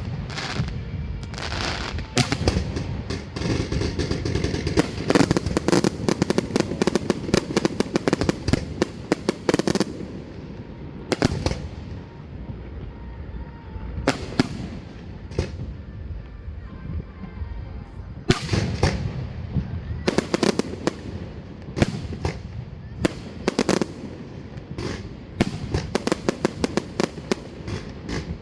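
Fireworks display: many sharp bangs and crackling bursts, packed into a dense run over the first third, then a few single booms spaced a few seconds apart, then dense again through the last third.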